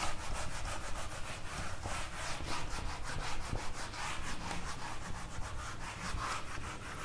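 A cloth duster rubbing marker writing off a whiteboard, in quick back-and-forth scrubbing strokes, several a second.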